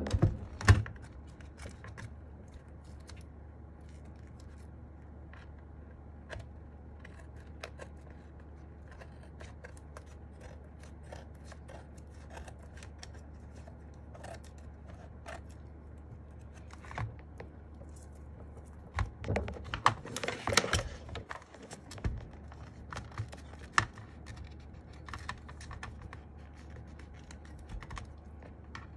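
Scissors snipping off excess adhesive tape from a keyboard case, with small scattered clicks and handling noise. About twenty seconds in there is a louder, denser run of snips and rustling.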